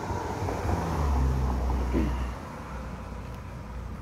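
A motor vehicle passing by: its low engine rumble swells to its loudest about a second in and fades away after about two seconds.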